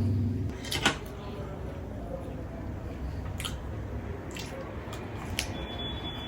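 Wet chewing and squishing of food, with a few faint clicks.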